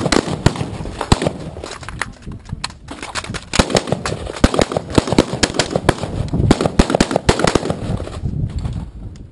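Many AR-15 rifles firing at once from a line of shooters, an irregular run of sharp, overlapping shots with a brief lull about three seconds in. The shooters are firing pairs to the chest with a magazine change between them. The shooting thins out near the end.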